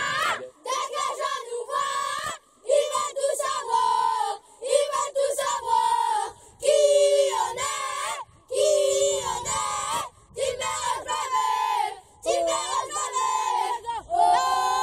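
A group of young boys shouting a team chant together, in short pitched phrases with brief breaks between them.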